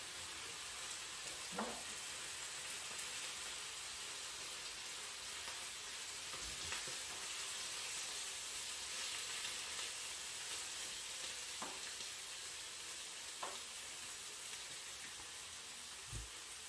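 Spinach sautéing in oil in a hot pan: a steady sizzle, with a few light taps of the utensil as it is stirred.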